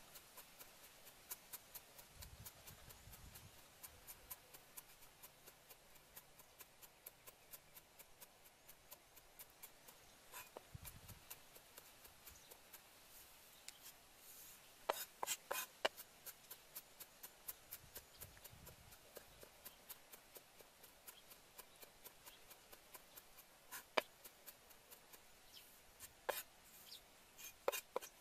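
Cleaver mincing garlic on a wooden chopping board: light, quick knocks of the blade on the wood, several a second, with a few sharper, louder strikes in the second half.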